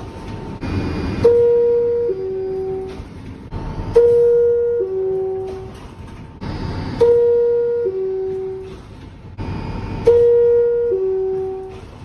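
R62A subway car door chime on the New York 1 train: a two-note chime, a higher tone then a lower one, sounding four times, each from a separate door closing. A short rush of noise comes just before each chime.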